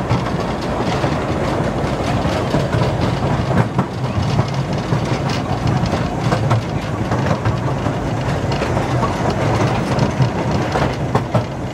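Ride in a moving train: steady rumble of the carriage with irregular clicking and clacking of the wheels over the rails.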